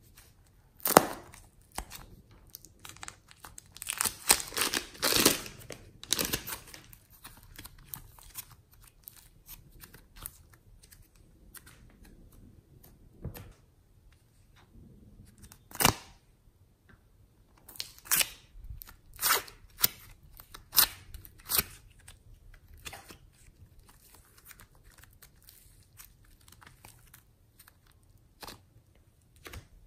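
Slime and craft materials being handled: a plastic piping bag of clay crinkling as it is squeezed, and plastic slime containers and foam slime being picked up. The sound is irregular crinkles, crackles and sharp clicks, loudest about a second in, around four to six seconds in, at about sixteen seconds and several times between eighteen and twenty-two seconds.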